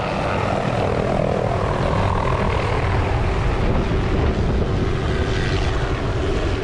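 Helicopter flying low overhead, its rotor chop and engine whine loud and steady.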